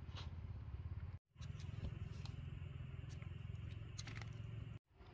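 Faint clicks and scraping as a ripe dragon fruit is picked from its cactus stem, over a steady low rumble. The sound drops out completely twice, briefly.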